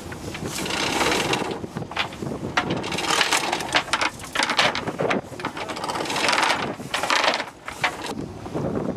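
Yacht's anchor chain running out over the bow, clattering unevenly as the anchor is let go.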